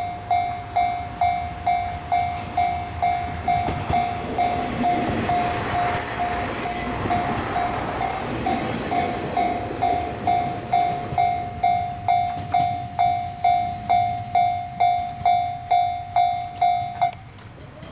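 Japanese level crossing warning alarm ringing in an even repeated ding, a little over one a second, while a train passes through the middle with a rush of wheel and rail noise that builds and fades. The alarm stops near the end.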